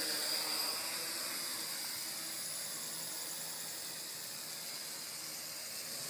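WLToys V959 quadcopter flying low, its four small brushed coreless motors and propellers giving a steady high whir and hiss.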